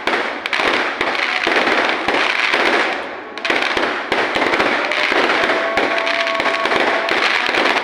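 Fireworks going off in quick succession: a dense, continuous crackling and popping of many small explosions.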